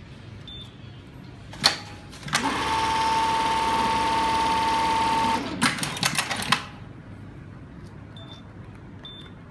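Industrial eyelet buttonhole sewing machine running one sewing cycle: a sharp click, then about three seconds of fast, steady stitching with a high, steady whine, ending in a quick flurry of clacks as the cycle finishes.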